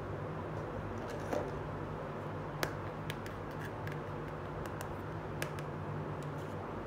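A few light clicks and taps from a small plastic toy plate being handled and set down, over a steady low hum.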